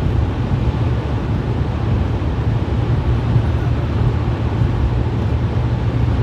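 Car driving on the road: a steady low rumble of engine and tyre noise, with no changes.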